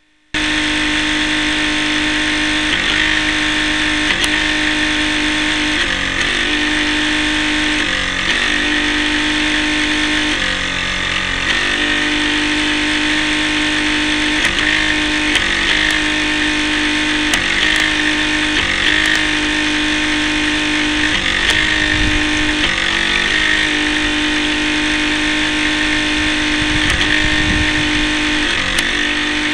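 RC boat's motor running steadily at one strong pitch, heard from on board the boat, with short dips in pitch every second or two. A low rumble of water or wind joins in a few times near the end.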